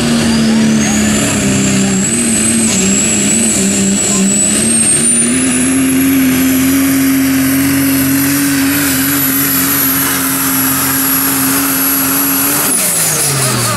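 Super Stock diesel pulling truck, a second-generation Dodge Ram with a Cummins diesel, running flat out under the load of the sled. A steady engine drone carries a high turbocharger whistle that climbs in the first two seconds, steps higher about five seconds in and holds. Near the end the engine note and the whistle fall away together as the throttle comes off.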